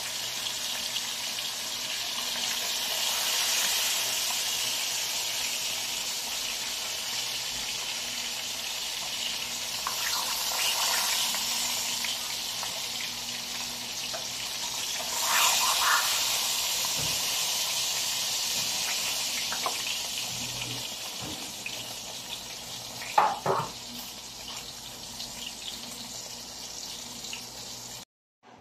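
Tilapia pieces frying in hot oil in a wok: a steady sizzle, with a couple of brief louder clatters partway through, cutting off suddenly near the end.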